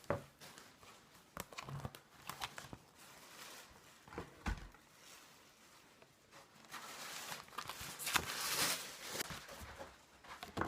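Handling noise: scattered light knocks and taps, with a few seconds of rustling late on.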